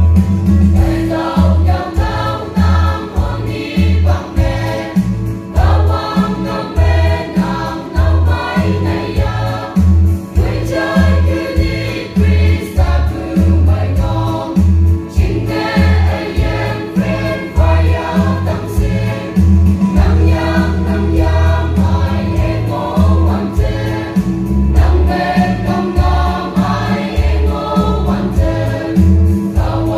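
A mixed choir of men and women singing together over amplified accompaniment with a steady beat in the bass.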